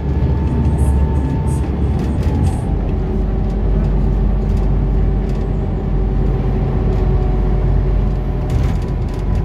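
Scania articulated bus heard from inside the cabin while driving: steady engine and drivetrain hum with road noise, and a few light rattles early. The engine note changes about two and a half seconds in.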